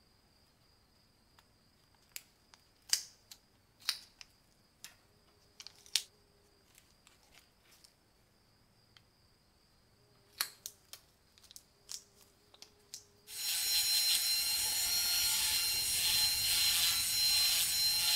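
Masking tape being torn and pressed around a small brass lighter part, a scattering of crackles and clicks. About thirteen seconds in, a rotary tool with a sanding drum starts and runs steadily with a high whine, sanding the part.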